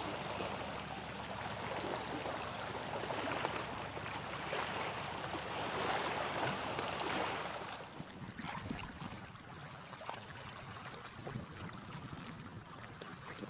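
Small sea waves washing and lapping over shoreline rocks, a steady watery rush that gets quieter about eight seconds in.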